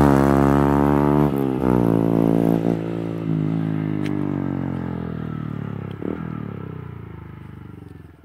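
Honda CG 150 Fan single-cylinder four-stroke motorcycle with a dual Coyote aftermarket exhaust pulling away after passing by: the exhaust note drops in pitch, breaks a few times in the first three seconds, and fades steadily into the distance until it is faint.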